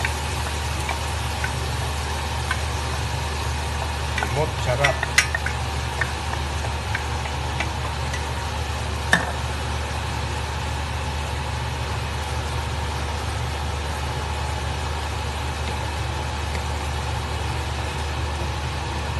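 Mung beans being stirred in a frying pan over a steady low hum; a spoon scrapes and clinks against the pan about four to six seconds in, and there is one sharp click near nine seconds.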